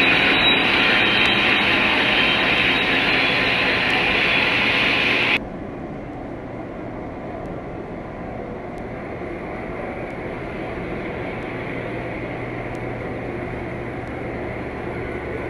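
O-gauge model trains running on the layout's three-rail track, a loud steady rolling noise of wheels and motors. About five seconds in the sound cuts suddenly to a quieter, steady running noise with a few faint clicks.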